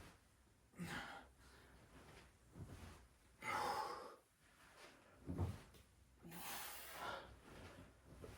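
A man breathing hard with about five heavy, noisy breaths and gasps, the loudest a little after three seconds in: strained breathing from the exertion of pistol squats.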